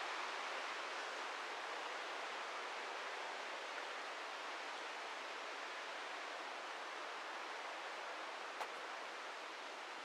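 Steady rushing of a mountain river's water, easing off slightly, with a single sharp click near the end.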